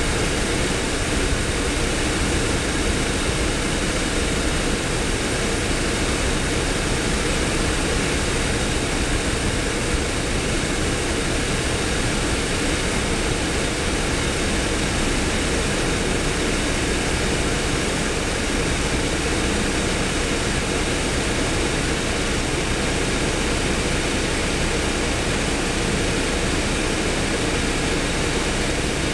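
Steady roar of a jet airliner's engines mixed with heavy construction machinery, at an even level with no rise or fall.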